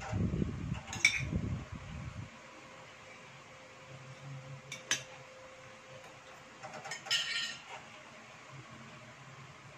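Metal fork and spoon clinking against ceramic plates during a meal. There are sharp clinks about one second in and around five seconds, and a short clatter about seven seconds in, when the fork is set down on the plate. A faint steady hum runs underneath.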